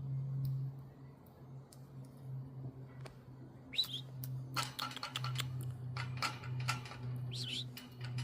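Budgerigars chirping in short calls, starting about halfway through, mixed with quick sharp clicks, over a steady low hum.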